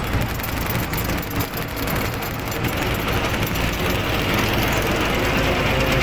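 Swaraj combine harvester's engine running steadily, heard from on board the machine as it drives along.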